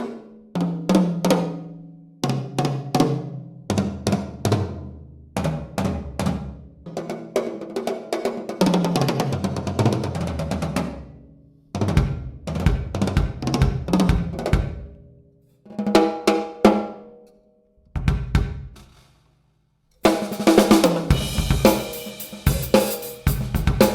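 TAMA Starclassic Maple drum kit played solo. First the toms are struck in turn, stepping down from high to low, then come fills and a kick-and-snare groove. After a pause of about two seconds near the end, a full groove with cymbals starts up.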